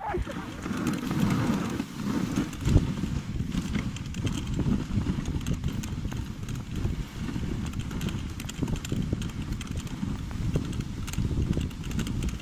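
Husky-drawn dog sled running over a snowy trail: the runners scrape and rumble on the snow, mixed with the patter of the dogs' paws, and there is one sharp knock about three seconds in.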